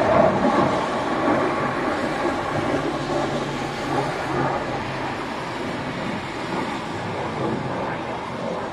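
Military jet flying away overhead, its engine noise a broad, steady rush that fades gradually as it recedes.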